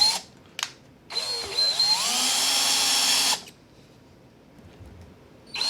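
Power drill with a 13/64 bit spotting screw-hole marks into aluminium plate. It spins up with a rising whine, runs for about two seconds and stops, then starts again near the end.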